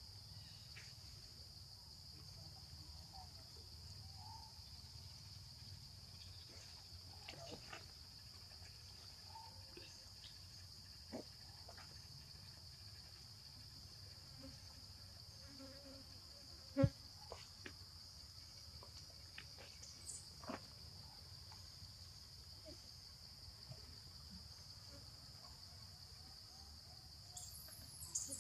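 Steady high-pitched drone of insects, with scattered faint ticks and rustles and one sharp click about seventeen seconds in.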